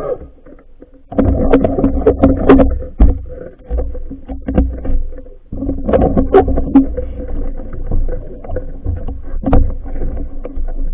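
Underwater sound picked up through a phone's waterproof housing: muffled rumbling with a run of knocks and clicks from handling and water movement, over a steady hum. It starts about a second in.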